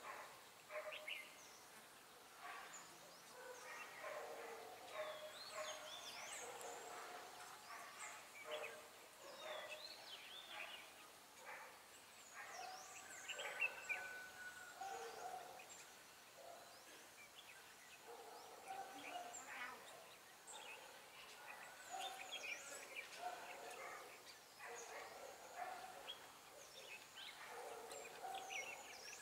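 Red-whiskered bulbuls calling: a steady stream of short chirps and warbled, gliding whistles.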